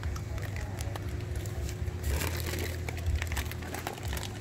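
Clear plastic fish bags crinkling and rustling as they are handled, with many small crackles that grow busier about two seconds in, over a steady low hum.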